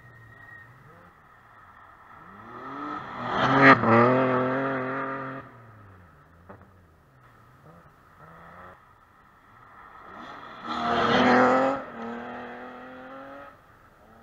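Rally car engine at racing speed. It passes loudly about four seconds in, its revs then rise and fall through gear changes, and a second loud burst of full throttle comes about eleven seconds in.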